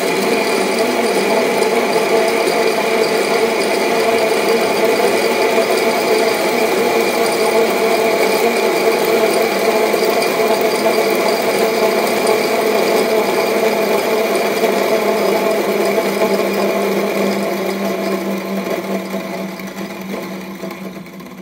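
Titus coffee grinder grinding a 21 g dose of espresso beans: a loud, steady grinding whir that starts suddenly, then quietens in the last few seconds as a lower hum comes through before it stops.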